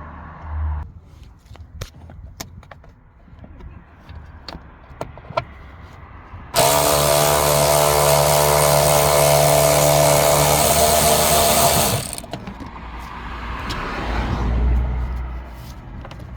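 A handheld electric power tool runs steadily for about five seconds, starting and stopping suddenly, while backing out a bolt that holds the seat belt pretensioner. Light clicks and knocks of tool handling come before it.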